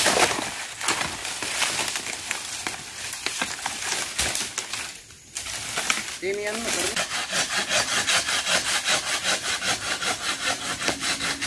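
Sandpaper rubbed quickly back and forth over a dry bamboo culm, in even strokes several a second, sanding the skin to bring out its brown pattern.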